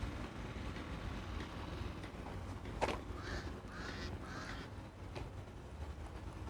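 A bird calling three times in quick succession about three seconds in, just after a sharp click, over a low steady background rumble.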